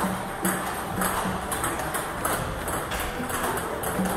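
Table tennis ball clicking off the table and the rubber of the bats in a backspin chop rally: a quick, irregular run of sharp ticks, about two a second.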